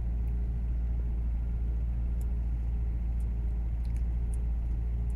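Maserati GranTurismo's V8 engine idling, a steady low rumble heard inside the cabin, with a few faint high ticks in the second half.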